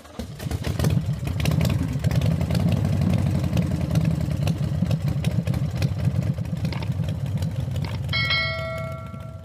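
Intro sound effects: a loud low rumble full of rapid clicks and clatter for about eight seconds, then a notification bell ding that rings out near the end.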